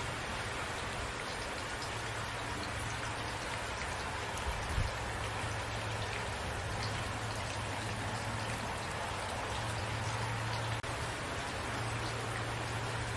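Steady rain falling, a continuous hiss with individual drops ticking on a surface. A single soft low thump comes about five seconds in.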